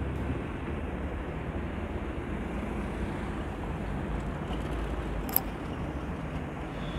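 Steady city street noise of road traffic passing, an even rumbling hiss, with one short sharp click about five seconds in.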